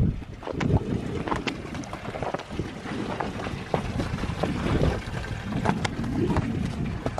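Wind buffeting the microphone in uneven gusts, with scattered sharp clicks and crunches throughout.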